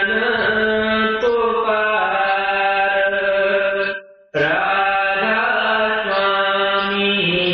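A male voice chanting a devotional hymn in long, held notes that step from pitch to pitch. The sound cuts out briefly a little after four seconds in, then resumes.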